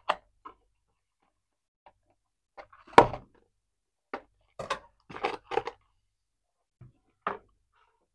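Scissors snipping through a toy's cardboard box and tray, heard as short separate clicks and cardboard rustles. The loudest snip comes about three seconds in, a quick run of them follows, and there is a light tap near the end.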